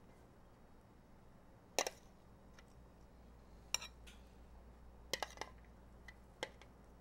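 A spoon clinking and tapping against a bowl a few times, spaced a second or two apart, as chicken salad is scooped out and spooned on.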